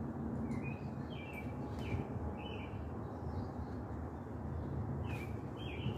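Short bird chirps, several scattered in quick succession and a couple more near the end, over steady low outdoor background noise.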